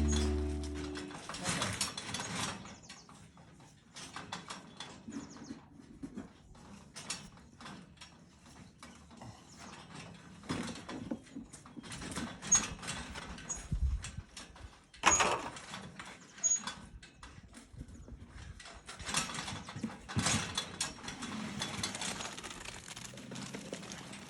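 Irregular scraping, tapping and knocking of hand tools and a bucket working wet concrete into the forms of a ring beam, with background music fading out in the first second or so.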